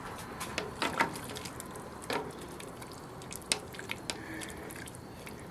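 Wet cotton batik shirts being handled in a pot of hot water to work the beeswax out: scattered short drips and small splashes, a few sharp ones standing out about a second apart.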